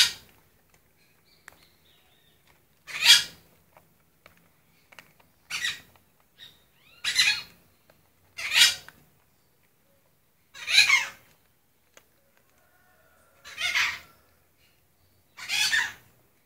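Short, squeaky animal calls, eight in all, coming roughly every two seconds, some falling in pitch.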